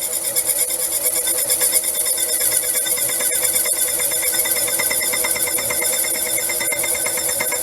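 Small lathe running steadily while a slot is cut into the head of a tiny 10 BA screw, the cutter being fed in gently. The noise holds even throughout, with a fast fine rhythm.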